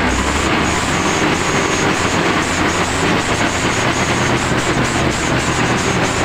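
Truck engines running hard under load on a steep, muddy climb, with one truck towing another: a loud, steady, labouring engine noise.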